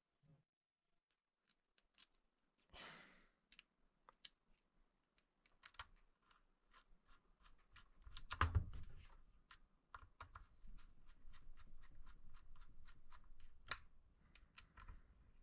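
Faint scattered clicks and light taps of small parts being handled while the adapter and gasket are fitted onto the shotgun, with a brief rustle about 3 s in and a duller knock about 8.5 s in.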